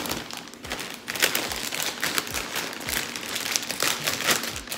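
Plastic bag of popcorn crinkling as it is handled and pulled open, a dense run of sharp crackles.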